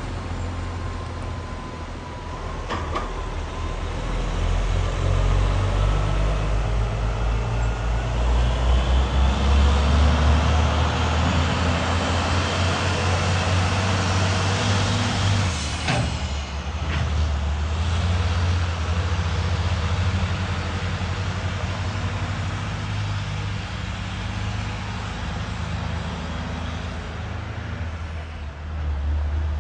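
Heavy-haulage prime mover's diesel engine under load, towing a multi-axle low-loader with a locomotive aboard. A low rumble grows louder as it pulls past and stays strong, with a short sharp hiss of air about halfway through, then eases.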